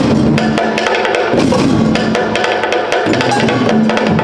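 Live drum ensemble playing a fast, dense rhythm of sharp wooden strikes over a deep, booming drum.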